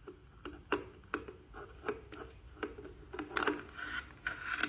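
Irregular light clicks and taps with some rustling: hands handling small objects.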